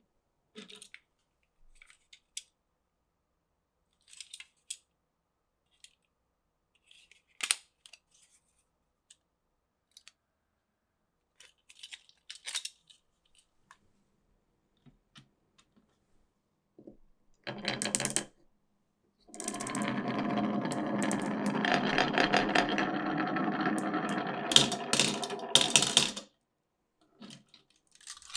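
Glass marbles running down a wooden marble-run track: scattered light clicks and clacks of marbles knocking against the pieces, then a long stretch of continuous rolling rattle lasting about seven seconds in the second half, with a few more clacks at the end.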